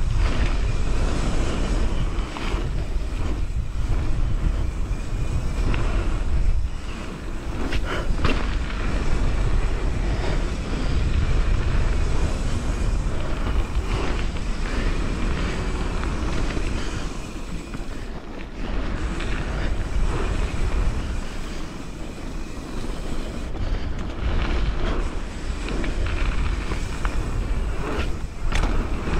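Wind buffeting a helmet or handlebar camera's microphone as a mountain bike rolls fast down a gravel trail, with the tyres crunching over the surface and occasional knocks and rattles from the bike over bumps.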